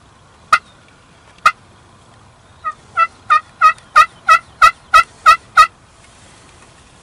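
Turkey hen yelps: two single yelps, then a run of about ten evenly spaced yelps at about three a second that builds in loudness over the first few.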